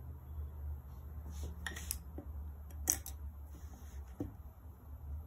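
A few sharp small clicks, in two close pairs about two and three seconds in, the loudest about three seconds in, over a low steady hum.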